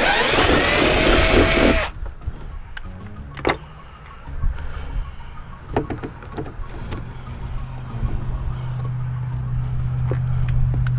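A cordless drill whines under load and shifts in pitch, stopping about two seconds in. A few sharp clicks and knocks of hardware and plastic being handled follow. From about eight seconds a steady low hum slowly grows louder.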